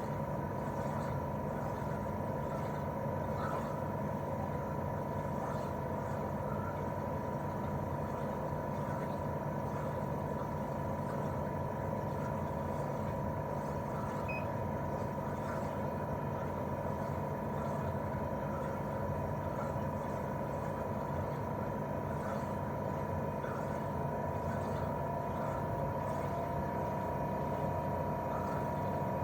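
Daikin R28RMV mini-split outdoor unit running in cooling mode, its twin-cylinder swing compressor and propeller fan giving a steady hum with a constant high whine. Near the end a second, slightly lower tone joins the whine.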